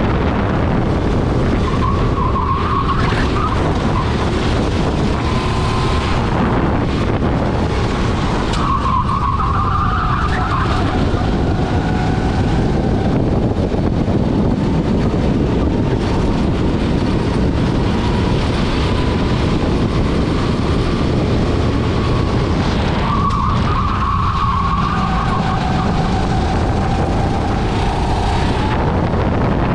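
Rental racing kart at speed, heard onboard: steady engine noise under heavy wind on the microphone, with short high squeals of the tyres three times as it goes through corners.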